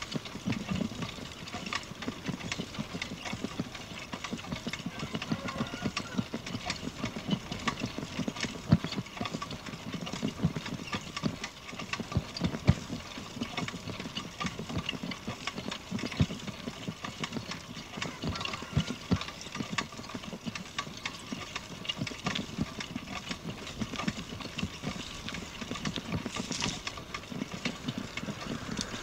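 Bicycle ridden along a paved road: a constant run of irregular clicks and knocks from the bike rattling as it rolls, over a background of road and wind noise.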